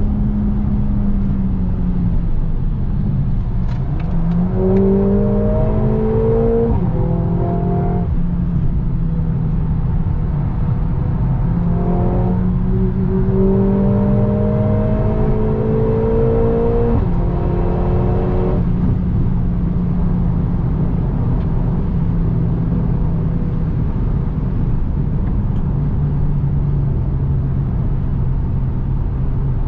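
Mercedes-AMG A45 S's turbocharged 2.0-litre four-cylinder, heard from inside the cabin at track speed. The engine note climbs under acceleration and drops suddenly at an upshift, twice, about 7 and 17 seconds in. It then holds a steadier, lower note over constant tyre and wind noise.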